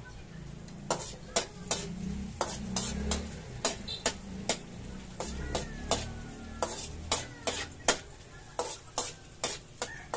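A spatula stirring onion and garlic sautéing in oil in a wok, with repeated sharp clinks against the pan, about two a second, over a low sizzle.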